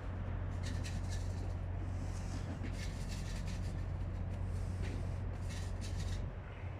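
A boat's engine running with a steady low hum, with brief hissing noise over it now and then.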